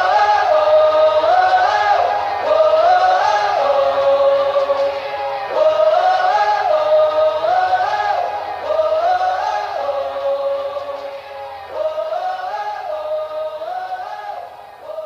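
Music: a sung vocal melody repeating the same short phrase over and over, fading out toward the end.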